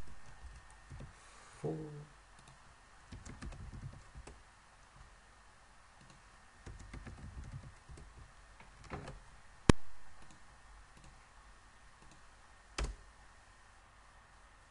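Computer keyboard typing in short bursts of faint keystrokes, followed by two single, sharper clicks near the end.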